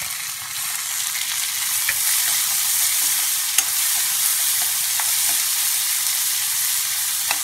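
Chopped tomato and onion sizzling in hot oil in a kadai while a spatula stirs them, with light scrapes and taps of the spatula on the pan. The sizzle grows louder about a second in as the fresh vegetables hit the oil, and a sharp clack of the spatula against the pan comes about halfway through.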